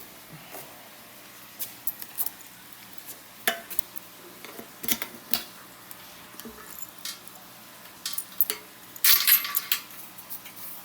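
Scattered light metallic clinks and jingles of small metal objects being handled, with the loudest rapid cluster about nine seconds in.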